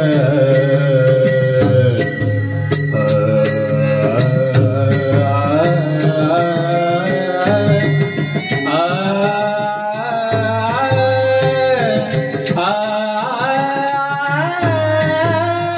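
A man singing a devotional kirtan tune (chal) in long, gliding phrases over a steady drone, with small hand cymbals (taal) struck in a regular beat.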